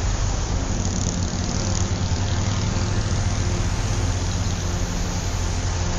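Steady city traffic rumble with a constant hiss over it.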